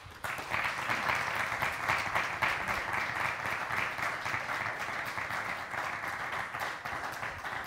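Audience applauding, starting suddenly and easing off slightly near the end.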